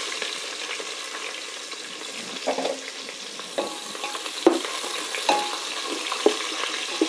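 Sliced onions sizzling in hot oil in a stainless steel pot, the sizzle easing off a little, while a spatula stirs them and scrapes against the pot about five times.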